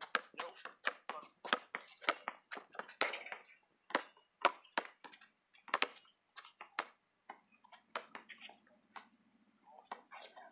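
Basketball bouncing on an asphalt court: a run of quick, sharp dribbles, thinning out to scattered bounces in the second half.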